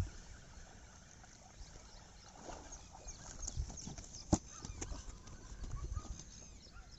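A snakehead (murrel) being landed on a grassy bank: small knocks and rustles as it is swung out of the water and flops on the grass, with one sharp thud about four seconds in.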